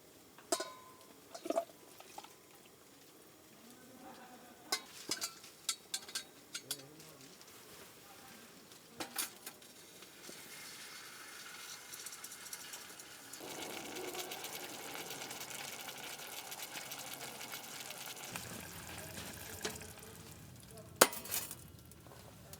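Cooking on a camp stove: cookware clinks and knocks a few times, then food starts sizzling in a hot pan about halfway through and keeps up a steady sizzle. There is one sharp clack near the end.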